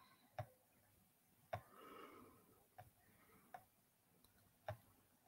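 Near silence broken by about five faint, sharp clicks at uneven intervals: computer mouse clicks.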